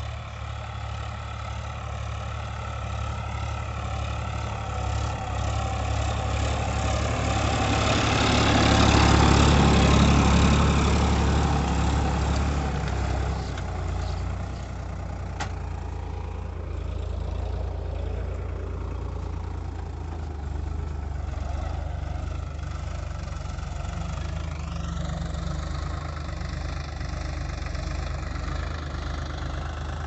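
Sonalika tractor's diesel engine running steadily while it pulls a disc plough through dry soil. It grows louder as the tractor comes close, loudest about a third of the way in, then settles to a steady drone.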